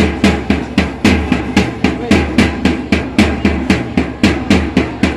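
Dance music with a fast, even drum beat over a steady low bass line.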